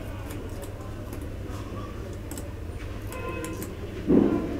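Light clicks and taps from an LED TV's panel and frame parts being handled and seated, over a steady low hum. A short, louder sound comes near the end.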